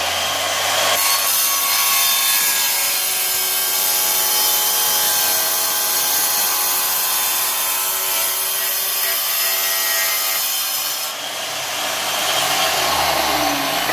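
Wet tile saw running, its diamond blade cutting a quarter-inch strip off a floor tile. The grinding hiss of the cut starts about a second in and ends about eleven seconds in, after which the blade spins freely with a steady motor hum.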